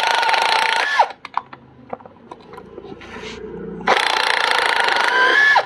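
Cordless 20 V impact wrench running in two bursts: about a second at the start, then nearly two seconds near the end. Each burst is a hammering rattle over a steady motor whine that falls away as the trigger is released. It is undoing the 16 mm nut on a shock absorber's top mount, and a few light clicks fall between the bursts.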